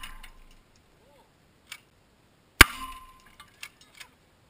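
A Benelli shotgun blast about two and a half seconds in, pellets striking the laptop and bottles at the target, followed by a brief ringing tone and a few small clinks of debris. It opens on the fading tail of a previous shot.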